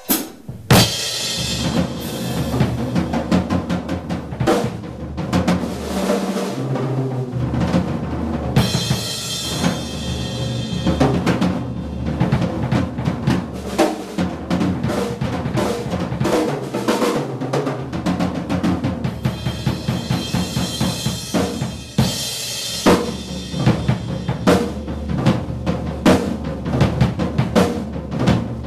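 Drum kit played fast and hard, with bass drum, snare and rolls, and stretches of crashing cymbals.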